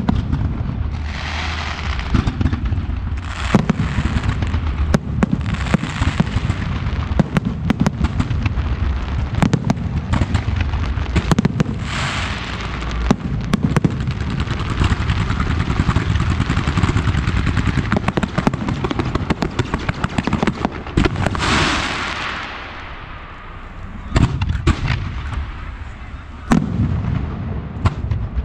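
Aerial firework shells going off in rapid succession: a dense run of sharp bangs over a continuous crackling hiss from the bursting stars. The barrage dips briefly about three-quarters of the way through, then the bangs pick up again.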